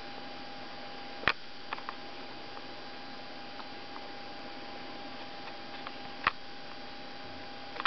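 Steady electrical hum with a faint hiss, broken by a few faint ticks and two sharp clicks, about a second in and five seconds after that.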